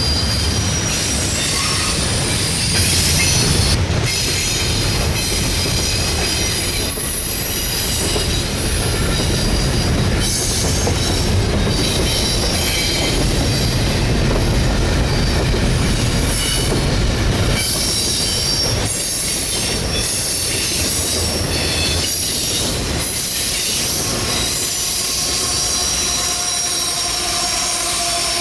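A train rolling past with a steady rumble, its steel wheels squealing on the rails in shifting high-pitched tones.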